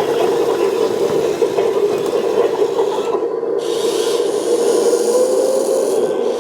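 Electric motors and gearboxes of a 1/18-scale all-metal RC excavator running steadily, a gritty whirr with a faint tone drifting slowly in pitch, as the machine works.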